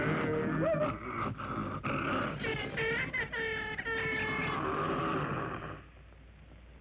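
Cartoon character growling and grunting over orchestral score, with a wavering vocal stretch in the middle, dying away about six seconds in.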